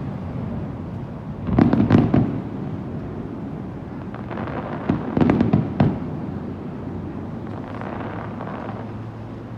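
Fireworks bursting: a cluster of bangs and crackles about two seconds in, another about five seconds in, and a fainter one near the end.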